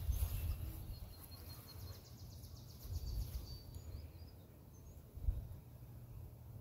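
Wind rumbling on the microphone in uneven gusts, strongest about five seconds in, with faint bird chirps and a brief high trill in the background.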